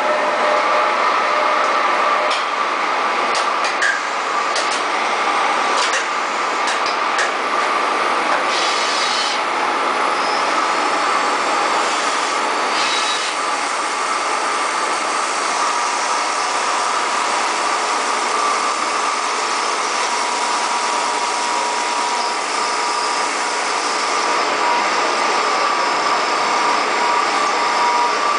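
CNC milling machine cutting an aluminium chain guard at high speed: a steady spindle whine over a constant cutting hiss, with a few sharp ticks in the first several seconds.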